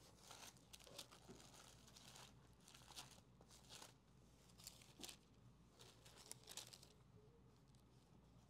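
Faint paper rustling: the thin pages of a Bible being leafed through to find a passage, in a series of short rustles and flicks.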